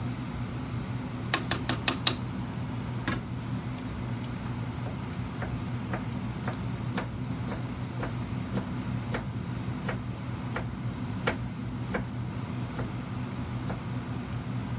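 Kitchen knife slicing a peeled white root vegetable into sticks on a plastic cutting board: a quick run of four knocks about a second in, then slow, even strokes about two a second. A steady low hum runs underneath.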